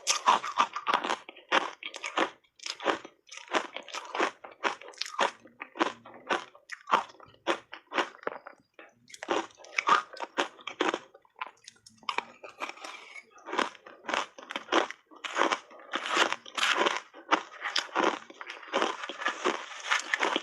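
Dry, crunchy shaved ice being bitten and chewed: a rapid run of crunches that eases off briefly about eight and twelve seconds in.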